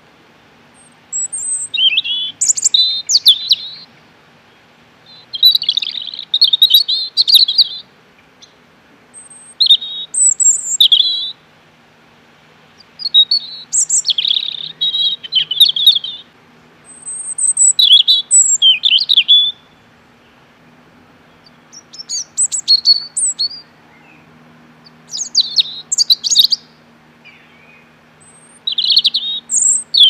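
European robin singing: about eight high-pitched phrases of quick, varied notes, each lasting a couple of seconds, separated by short pauses.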